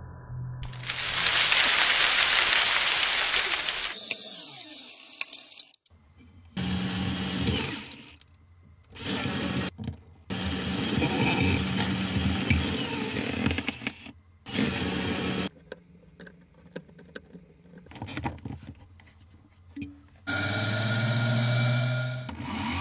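LEGO electric motors and gear trains whirring at high speed in a run of short clips, each starting and cutting off abruptly. The first few seconds are a rushing noise; the later clips are a steady motor whine with short quiet gaps between them.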